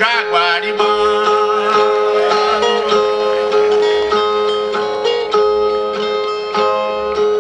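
Two ten-string Brazilian violas strummed and plucked in a repeating instrumental phrase between sung verses of repente. A man's sung line trails off in the first second.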